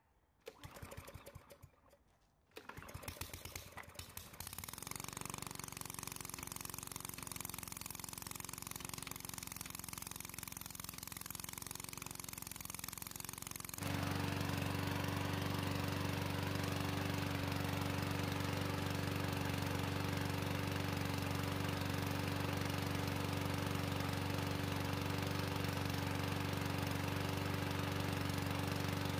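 Walk-behind lawn mower's small single-cylinder engine, pull-started: a first pull about half a second in, then the engine catches about two and a half seconds in, runs unevenly briefly and settles into a steady run. It becomes louder about halfway through. The engine is running on gasoline mixed with black powder, started with a shot of brake parts cleaner.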